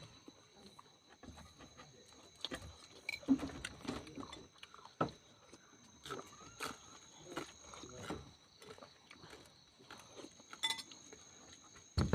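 A person chewing and eating papaya leaves and bitter melon, with irregular wet mouth noises and clicks, and a few light clinks of a dish; a louder knock near the end.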